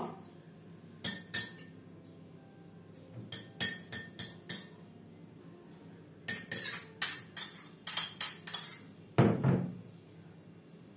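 A metal spoon clinking against a frying pan and plate in quick groups of sharp taps as cooked chicken liver is scooped into bread rolls, with one heavier, duller knock about nine seconds in, the loudest sound of the stretch.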